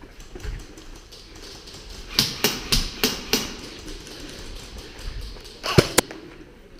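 Sharp snaps of airsoft gunfire in a building: five in quick succession about a third of a second apart a couple of seconds in, then two louder ones shortly before the end.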